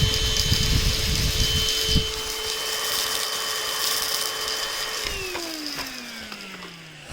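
Onson cordless stick vacuum's motor running with a steady high whine and rush of air, then switched off about five seconds in, winding down with falling pitch.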